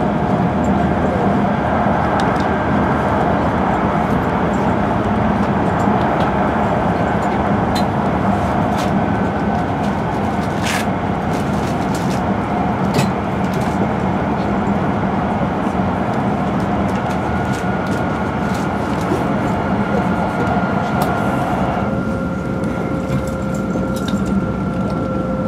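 Cabin running noise of an E5 series Shinkansen travelling at speed: a steady rush and rumble with faint steady whine tones and a few sharp clicks. About 22 seconds in, the higher part of the rush drops away.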